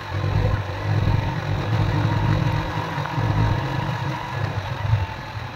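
Motorcycle engine running as the bike rides along a rough dirt road, a low rumble that eases off near the end.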